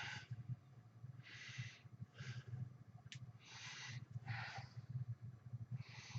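A man breathing hard from exercise: about five short, noisy breaths over a few seconds. A single sharp click comes about three seconds in, over a low steady hum.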